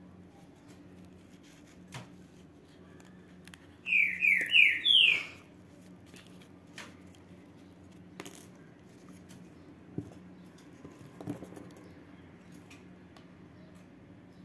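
Four loud chirps in quick succession, each falling in pitch, lasting about a second and a half in all. Around them, faint clicks and rustles of ribbon and thread being handled during hand sewing.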